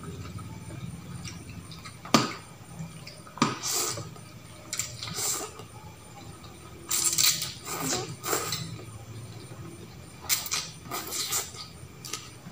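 Eating noodles and rice with a fork and spoon: metal cutlery clinking and scraping on a plate several times, and a mouthful of noodles slurped in, over a steady low hum.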